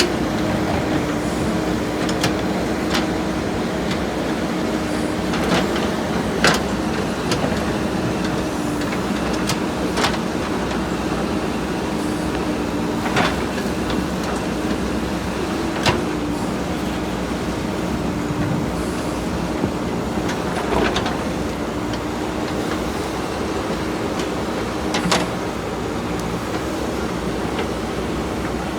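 JCB 3DX backhoe loader's diesel engine running steadily while the machine works. Sharp knocks come every few seconds at uneven spacing.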